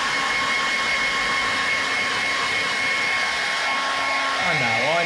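Handheld electric hair dryer running steadily: an even rush of blown air with a thin, steady high whine from its motor.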